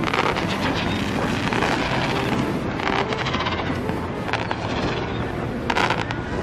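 Steady wind rumble on the microphone, with several short bursts of fireworks crackling overhead.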